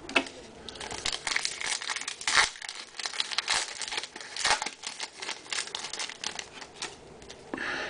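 A foil trading-card pack wrapper being torn open and crinkled by hand, a run of irregular crackles with a few sharper tearing rips.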